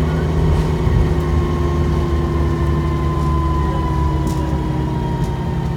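Dennis Trident 2 double-decker bus's engine running under way, a deep steady rumble heard from inside the bus, with a thin whine that slowly falls in pitch and a few light rattles near the end.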